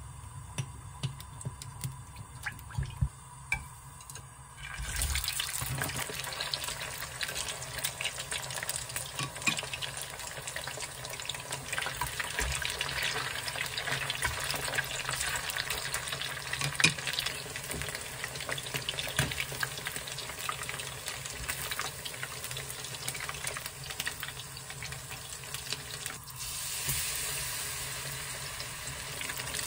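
Battered food deep-frying in hot oil in a frying pan: a dense, crackling sizzle that picks up about five seconds in. Near the end the sizzle grows brighter and louder as battered enoki mushrooms go into the oil.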